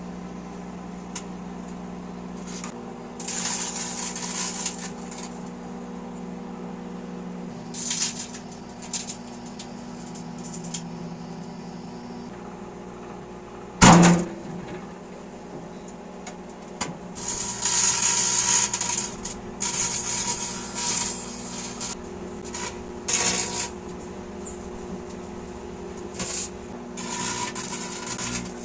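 Microwave oven running with a steady electrical hum. Short bursts of hissing crackle come and go over it, and there is one sharp bang about halfway through.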